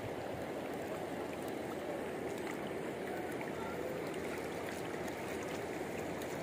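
Steady rush of flowing river water, an even wash of noise without breaks.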